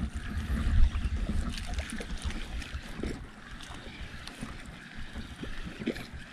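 Wind buffeting the microphone with a low rumble, heaviest in the first second and a half, over water sloshing around a small outrigger boat.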